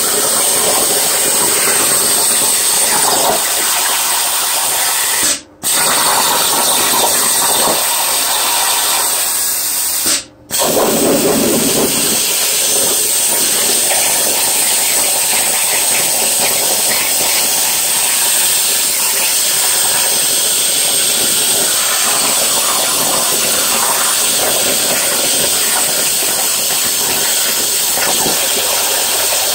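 Plasma cutter torch on a Langmuir Crossfire CNC table cutting 18-gauge sheet metal at 70 inches per minute: a steady, loud hiss of the plasma arc, which breaks off for a moment twice, about five and ten seconds in.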